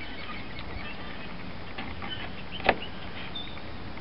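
Mora knife shaving thin curls off a small oak wedge: faint scraping strokes, with one sharp tap about two-thirds of the way through.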